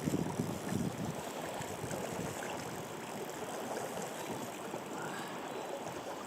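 Steady rush of river current flowing around the raft.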